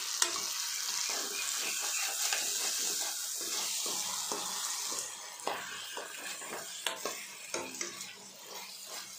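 Fried chicken pieces and onion-tomato masala sizzling in oil in a stainless steel pan while a metal spatula stirs and scrapes them, with scattered clicks of spatula on pan. The sizzle is strongest in the first half; after that the clicks of the stirring stand out more.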